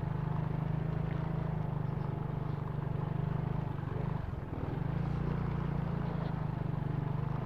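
Motorcycle engine running at walking pace, a steady low hum that dips briefly about halfway through.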